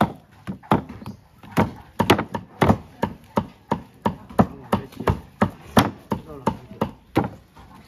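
Knife chopping raw pork on a chopping board to mince it for the salad: a steady run of sharp chops, about three a second.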